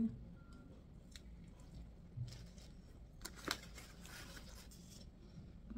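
Paper food wrapper being handled, rustling and crinkling softly, with a few small ticks.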